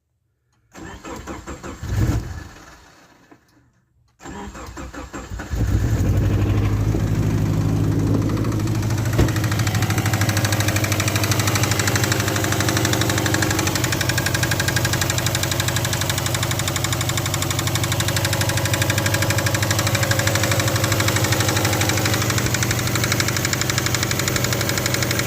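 Subaru Forester's flat-four boxer engine being started: a first attempt fires briefly and dies, then after more cranking it catches about five seconds in and idles steadily. It runs with the knock it was bought with, the sign of an internal engine fault.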